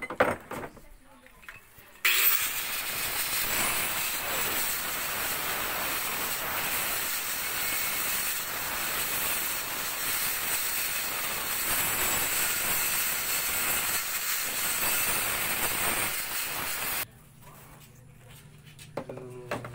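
Small electric angle grinder with a cutting disc starting about two seconds in and cutting PVC pipe: a loud, steady, high-pitched grinding whine that cuts off suddenly near the end.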